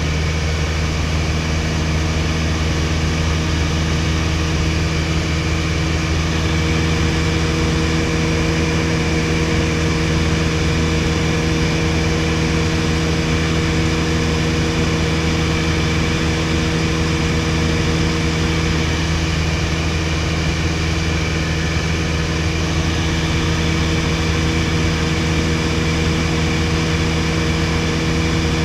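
1961 Piper PA-22-108 Colt's four-cylinder Lycoming engine and propeller running steadily at cruise power in flight, heard from inside the cabin as a loud, even drone.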